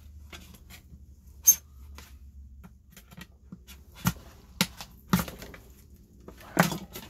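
Screwdriver prying at the seam of a black plastic panel: sharp clicks and snaps of plastic, a loud one about a second and a half in and several more from about four seconds in. A low steady hum runs underneath.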